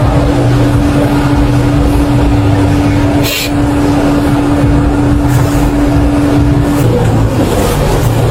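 Engine and road noise inside a police patrol car: a steady low rumble with a constant hum that cuts off about seven seconds in, and a brief hiss about three seconds in.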